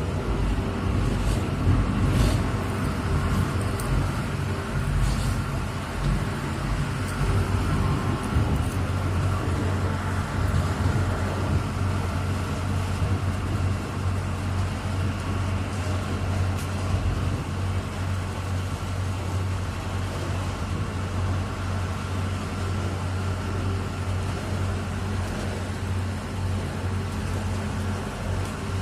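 Ferry engine running steadily: a low, even hum with a constant hiss over it.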